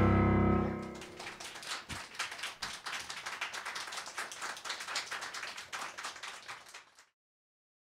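A shamisen, guitar, harmonica and piano quartet's final chord rings out and dies away within the first second. A small audience then applauds, the clapping thinning out until it cuts off suddenly about seven seconds in.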